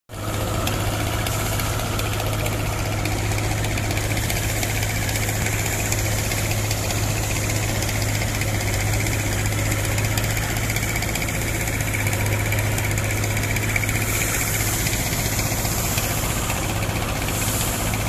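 Heavy construction vehicle's diesel engine running steadily at a constant speed, an even low drone that does not change.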